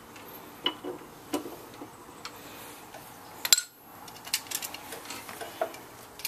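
Metal hand tools clicking and clinking irregularly as they are handled, a dozen or so light knocks with the sharpest about halfway through.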